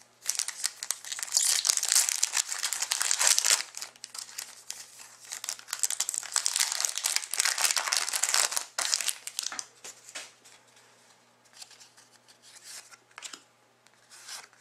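Foil trading-card pack wrapper being torn open and crinkled for about nine seconds, then only faint, scattered rustles and clicks as the cards are handled.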